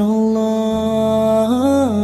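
Background song: a single voice holds a long wordless note over a steady low drone, with a brief rise and fall in pitch near the end.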